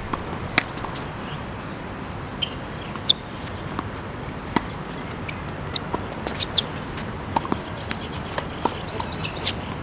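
Tennis rally on a hard court: sharp pops of the ball struck by rackets and bouncing, the loudest about three seconds in, with brief high chirps among them.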